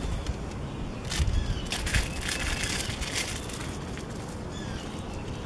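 Birds chirping now and then over a low rumble, with a rustling, crinkling noise for about two seconds in the middle.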